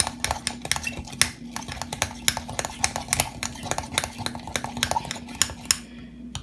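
A utensil clinking and scraping against a bowl as soft soap is stirred and worked, in quick irregular knocks that stop near the end.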